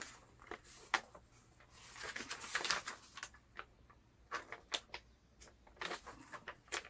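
Paper instruction sheets rustling as they are handled and turned, with scattered light clicks and taps.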